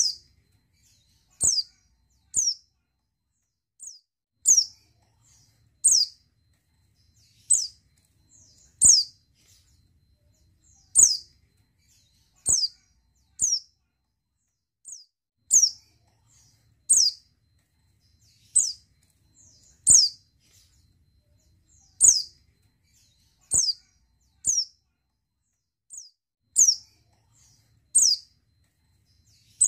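Female pleci (white-eye) in breeding condition giving short, high call notes, each falling in pitch, repeated about every one to two seconds.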